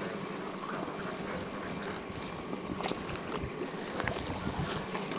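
Daiwa Ballistic FW LT2000SS-XH spinning reel working in spurts while a hooked trout is played: a high-pitched mechanical buzz that starts and stops several times, over steady outdoor background noise.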